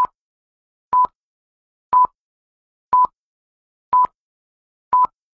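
Film-leader countdown beeps: a short, steady, high-pitched beep once a second, six times, with silence between.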